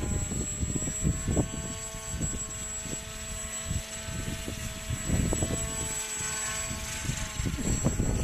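RC model autogyro's pusher motor and propeller running with a steady whine whose pitch steps up and down with throttle. Gusts of strong wind buffet the microphone with an uneven low rumble.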